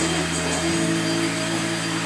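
Background music of sustained chords that change about every second and a half.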